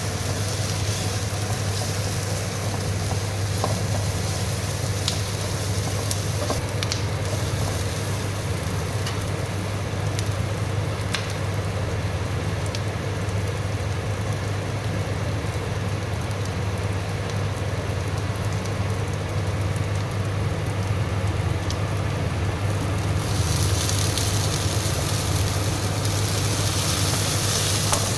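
Food sizzling steadily in hot oil in a pan, with a few sharp pops scattered through it and a steady low hum underneath. The sizzle grows louder near the end.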